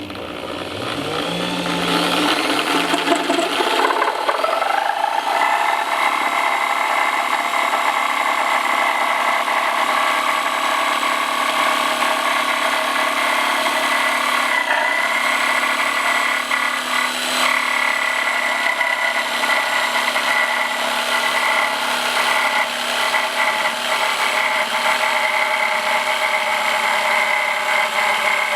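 Harbor Freight 6-amp corded reciprocating saw's motor speeding up over the first few seconds, then running at a steady high pitch.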